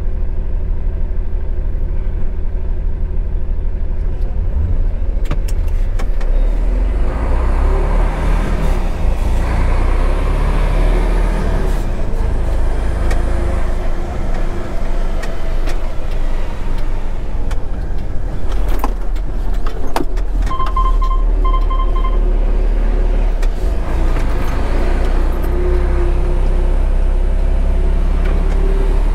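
Heavy truck's diesel engine running while it drives slowly, with a steady low rumble whose pitch rises and falls as it speeds up and slows. A short series of beeps comes about two thirds of the way through.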